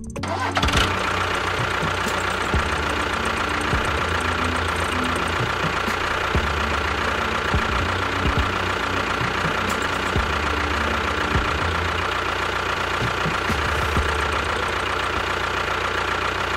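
Tractor engine running steadily, with a constant high whine over it.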